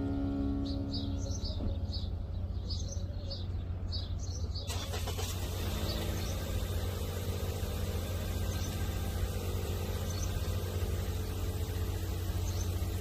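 Outdoor background: a steady low rumble of road traffic, with a bird chirping over and over for the first few seconds. About five seconds in, a steady hiss sets in.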